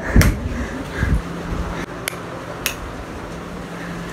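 Two dull thumps of the phone being handled, then two sharp clicks about half a second apart from wall light switches being flipped off, over a low steady hum.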